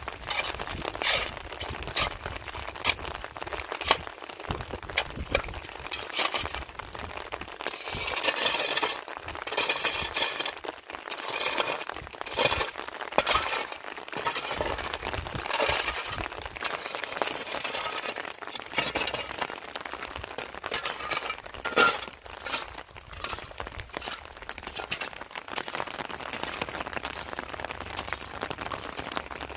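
Hard objects being handled: irregular sharp clinks and cracks, with short scraping noises in between, all through.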